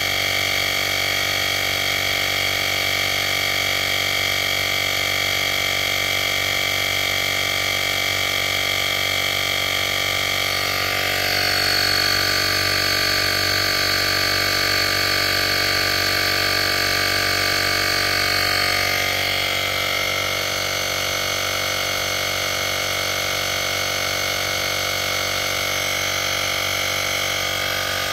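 Portable digital air compressor running steadily while inflating a tire, a slow fill. Its tone shifts about eleven seconds in and again about eight seconds later.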